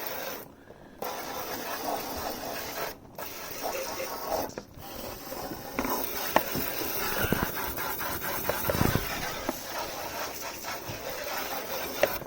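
Hand pump sprayer spraying a water rinse onto a mini split heat pump's indoor coil, a steady hiss with a few short breaks early on where the spray stops and starts, and some splashing.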